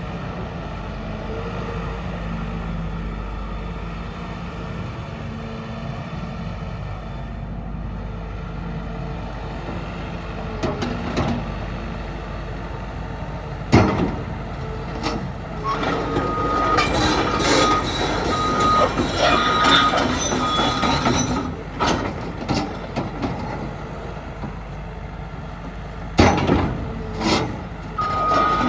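CAT 316EL excavator's diesel engine running steadily, then loud metallic knocks and a stretch of busy clanking and clatter from the machine working or moving. A pulsed alarm beep sounds on and off through the clatter, and again near the end.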